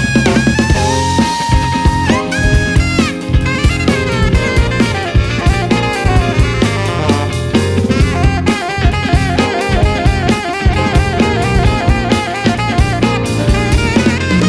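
Live funk band playing: a drum kit drives the groove with snare, rimshots and kick drum, under a horn melody line with a long held note about a second in.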